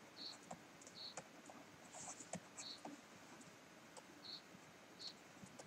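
A stylus writing on a tablet screen by hand: faint, short ticks and light scratches, about one a second.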